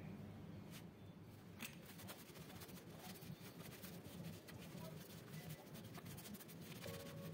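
Faint handling and rubbing of a metal skateboard truck in a cloth, with two light clicks in the first two seconds.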